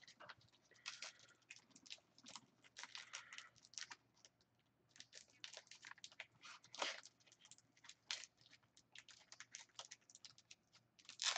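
Faint crinkling and rustling of a foil trading-card booster-pack wrapper and cards being handled: a scatter of small clicks and crackles, one a little louder about halfway through.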